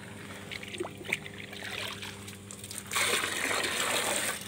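Water in an aerated biofloc fish pond trickling and splashing, growing louder about three seconds in, over a steady low hum.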